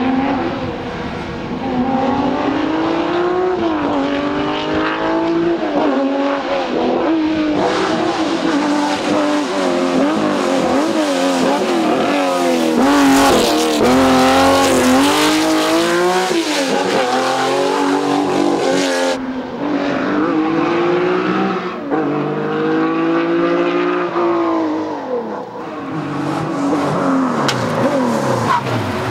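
Historic Porsche 911 rally cars' air-cooled flat-six engines at racing speed, one car after another. The engine note climbs and falls through lifts and gear changes, loudest about halfway through, and the next car takes over at about 20 seconds and again near the end.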